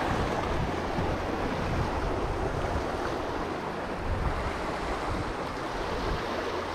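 Small waves washing and splashing over the rocks at the water's edge, a steady surging wash, with wind rumbling on the microphone.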